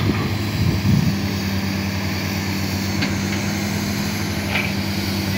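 Hydraulic excavators' heavy diesel engines running at work: a steady low engine drone that settles into an even hum about a second in.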